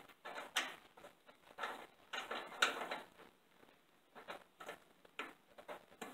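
Hand work on a car's radiator core support mounting: irregular light clicks, taps and rustles of metal parts and tools being handled, a few a second in clusters with short pauses between.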